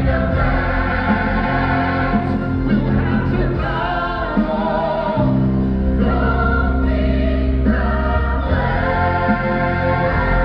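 A choir singing over a full musical backing with a heavy bass line, the voices holding long chords that change every few seconds.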